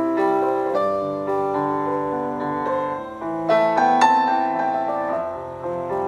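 Background piano music: a slow melody of held, overlapping notes.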